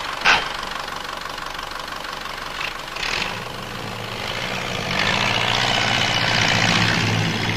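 Ferguson T20 tractor engine running steadily, growing louder about five seconds in.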